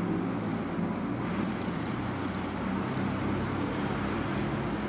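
Steady low hum with an even hiss of background noise, unchanging throughout and with no distinct events.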